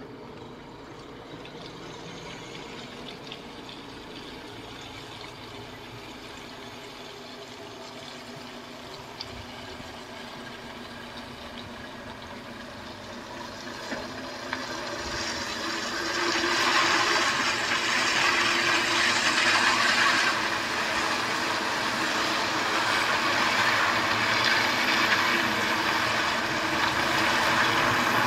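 Volvo FH truck with a long refrigerated trailer combination driving closer over a wet lot: a steady engine hum with a hiss of tyres on the wet surface. It grows louder from about halfway through and stays loud to the end.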